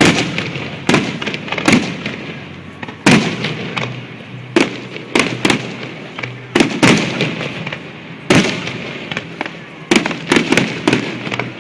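Aerial fireworks shells bursting in quick succession: a string of sharp bangs, each followed by crackling, with a rapid cluster of bangs near the end.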